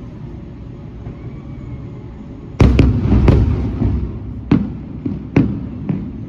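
Fireworks going off: a quick cluster of bangs about two and a half seconds in, then single bangs every half second to a second, each trailing off in a low rumble.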